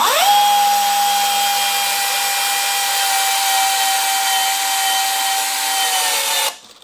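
DeWalt 20V XR Power Detect cordless drill driver spinning up quickly to a steady motor whine as it drives a wood screw into wood, then stopping suddenly near the end. It is on clutch setting 1, yet the clutch never slips or clicks: the screw is driven until it countersinks.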